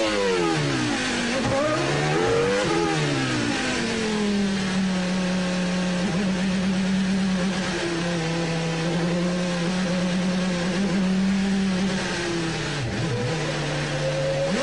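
Renault R25 Formula One car's V10 engine heard onboard: its pitch drops in quick steps as it downshifts under braking, rises and falls once more, then holds a steady note for several seconds before dipping and climbing again near the end.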